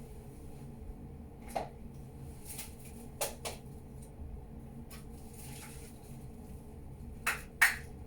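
Scattered light clicks and taps of a chalk stick and a handheld pencil sharpener being handled, the sharpener having just snapped the chalk's tip; a louder pair of knocks comes near the end.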